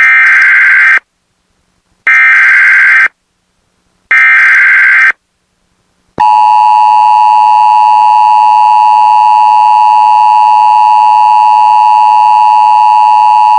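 Emergency Alert System activation on the radio: three one-second bursts of SAME digital header data, a second apart, encoding a flash flood warning. About six seconds in, the steady two-tone EAS attention signal starts and holds.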